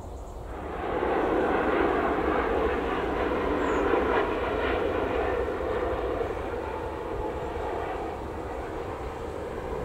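Engines of a landing Boeing 737 MAX jet airliner running as it passes low and close, starting under a second in, loudest for the first few seconds and then slowly easing off as it rolls down the runway.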